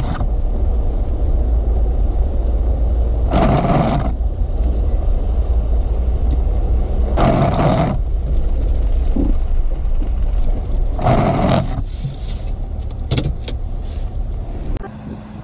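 Steady low road and engine rumble heard inside a car driving on a snowy road, with a brief louder burst of noise about every four seconds; the rumble eases near the end.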